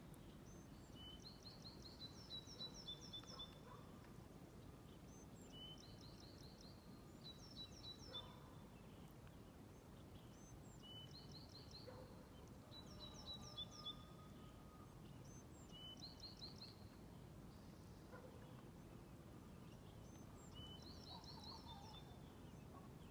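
Faint songbird song: a short phrase of quick, repeated downward-sweeping high notes, sung about seven times at intervals of a few seconds, over a low, steady background rumble.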